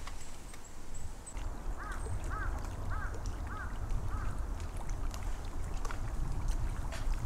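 A bird calls five times in quick succession, a little under two calls a second, about two seconds in, over a low steady rumble of wind and water at the lakeshore.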